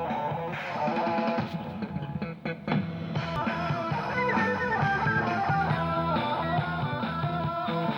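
Background instrumental music led by guitar, playing a melody of plucked notes. It briefly dips about two and a half seconds in, then picks back up.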